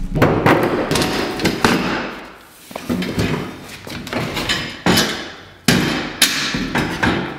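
Folding table with metal legs being pulled out and opened up: a string of sharp knocks and clatters, each followed by a short ring.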